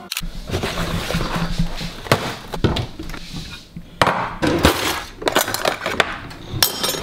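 Kitchenware clinking and knocking: a ceramic bowl handled on a stone worktop and a cutlery drawer pulled open, with metal utensils rattling. There is a run of sharp clicks and knocks throughout.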